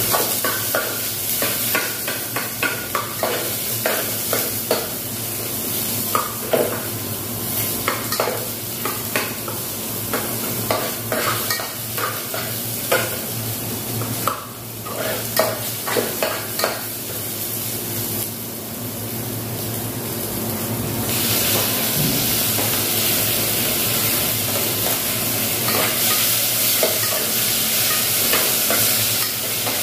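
Sautéing in a stainless steel saucepan: a spoon stirring and scraping against the pot over sizzling oil. The stirring strokes come thick and fast in the first half, and after about 20 seconds the sizzling turns into a steadier, louder hiss.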